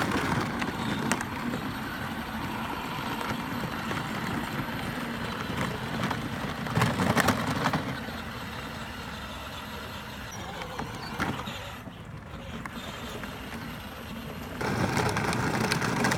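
A small ATV running, a steady low rumble that swells louder for a moment about seven seconds in.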